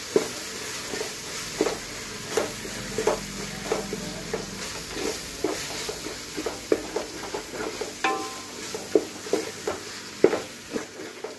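A metal ladle scraping and knocking against a metal pot, stirring ginger-garlic paste into onion-tomato masala over a steady frying sizzle. The paste is being sautéed until its raw smell is gone.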